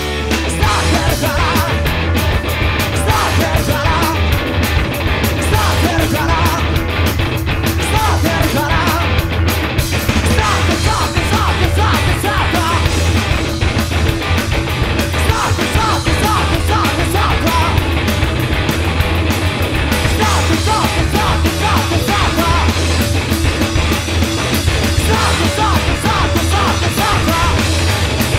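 Rock band playing loud, hard-driving garage punk: distorted electric guitar, electric bass and drums going without a break.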